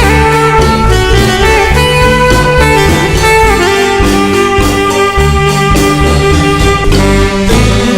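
Dance music from a marimba band, with long held melody notes and a few sliding notes over a steady bass line.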